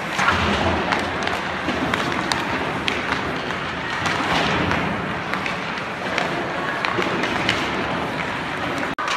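Ice hockey drill on an indoor rink: skates scraping the ice and sticks knocking pucks in sharp, irregular clicks over the arena's steady noise, cut off briefly near the end.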